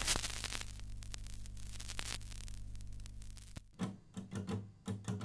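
Vinyl record crackle and clicks over a steady low hum. Near the end, music begins with pulsing low plucked notes.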